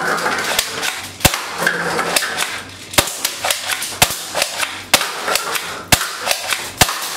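Plastic toy airsoft shotgun firing 6mm BBs, six sharp snapping shots about a second apart, with lighter clicks and clatter between them as BBs and paper cups are knocked over.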